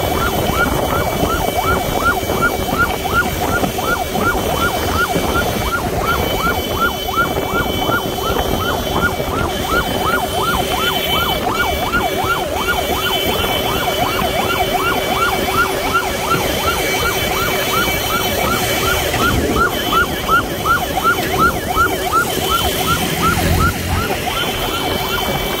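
Electronic yelp siren of a motorcycle ambulance, a quick chirp repeated about three times a second, over motorcycle engines and road traffic.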